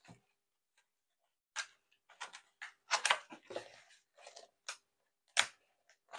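A cardboard packaging insert being handled and lifted out of its box: scattered knocks, scrapes and rustles of cardboard, with a sharp tap about five seconds in.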